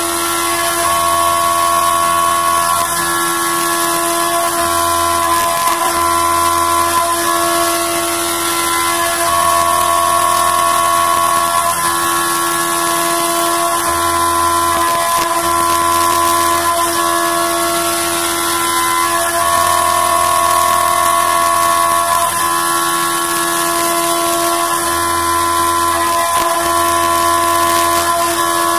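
CNC vertical milling machine cutting an aluminium block with an end mill under coolant spray: a steady high-pitched machining whine made of several tones, swelling a little about every ten seconds as the tool works through its passes.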